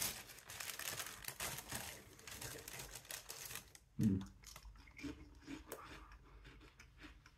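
Paper bag of crisps and seasoning powder rustling and crinkling as it is shaken, then crisps taken from the bag and crunched. A brief low hum of the voice about four seconds in.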